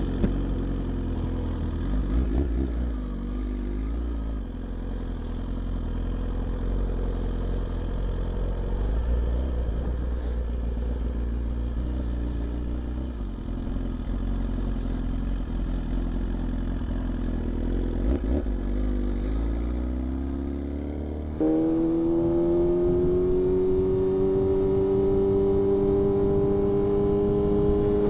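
BMW S1000RR sport bike's inline-four engine heard from the saddle. It runs at low revs as the bike rolls slowly, then about 21 seconds in turns suddenly louder, with a steady note climbing slowly in pitch as the bike accelerates.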